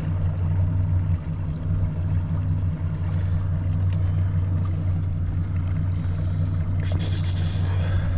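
A fishing boat's motor running steadily at low speed, a continuous low hum.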